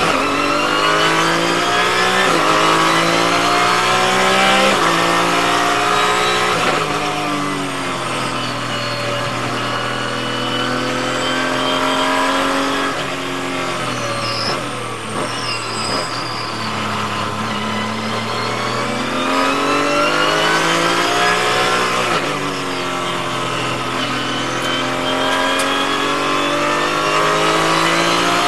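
Porsche 981 GT4 race car's naturally aspirated 3.8-litre flat-six under hard acceleration: the revs climb and drop back at quick upshifts about every two seconds early on. Around the middle the engine settles and then drops through a few downshifts, before it climbs again through the gears near the end.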